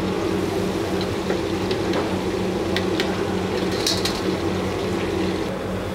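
Battered Hainanese pork chop pieces deep-frying in hot oil in a wok, bubbling over the steady roar of the gas wok burner. A few light metal clinks come from the wire-mesh strainer against the wok around the middle.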